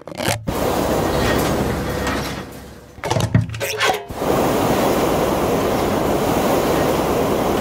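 Industrial sound effect for smokestacks puffing smoke: a steady, loud rushing hiss like steam or machinery. It fades about two to three seconds in, is broken by a few knocks, then comes back steady.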